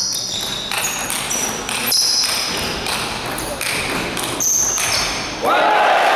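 Table tennis rally: the ball clicking off the rackets and the table in quick succession, each hit with a bright ring. Near the end the point is won and the crowd in the hall bursts into cheering and applause.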